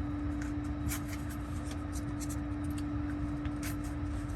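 Crinkling and small clicking rustles of an alcohol prep pad's paper-foil wrapper being handled and torn open, over a steady faint hum.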